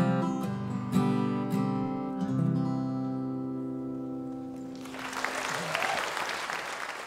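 Steel-string acoustic guitar strumming the last few chords of a song, the final chord ringing out and fading slowly. About five seconds in, audience applause starts up.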